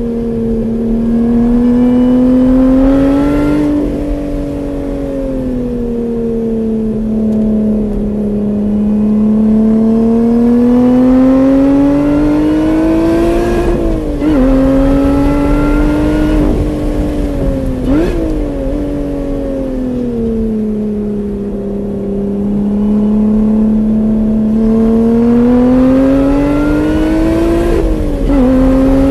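Car engine heard from inside the car on a track lap, its note rising and falling in pitch with throttle and speed. The pitch breaks sharply a few times, at gear changes.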